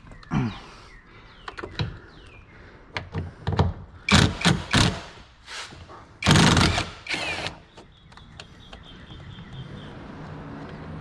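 Hand work on a car door: a run of knocks, clicks and plastic rattles from tools and door trim being handled, the loudest a longer clatter about six seconds in. A steady low hum sets in near the end.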